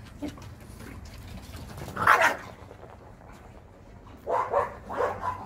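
Dog barking during play: one loud bark about two seconds in, then a quick run of three or four barks near the end.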